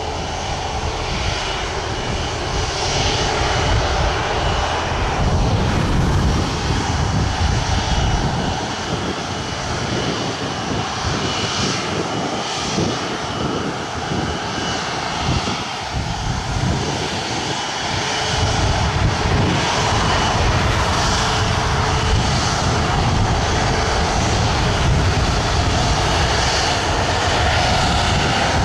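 Jet airliner engines running with a steady roar and a faint high whine, getting a little louder about two-thirds of the way through.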